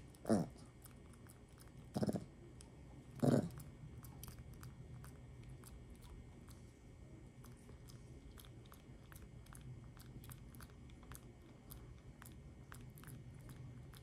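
A macaque grooming a person's face and hair, with many small quick clicks and smacking sounds of its fingers and mouth picking through the hair. In the first few seconds there are three short, low grunting sounds, the first falling in pitch.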